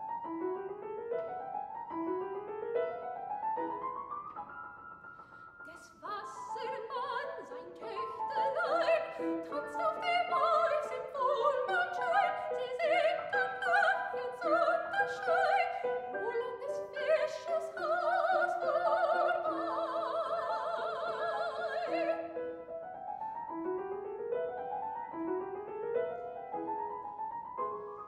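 Classical soprano singing a German art song with grand piano accompaniment. The piano plays quick rising figures alone at first, the voice comes in about six seconds in and ends on long held notes with vibrato, and the piano carries on alone for the last several seconds.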